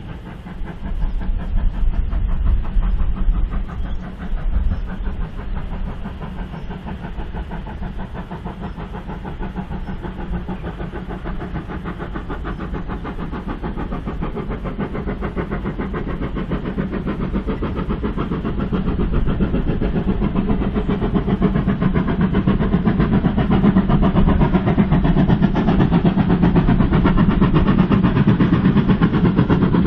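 Steam locomotive working hard as it hauls a goods train, its exhaust beating in a fast, even rhythm and growing steadily louder as it approaches.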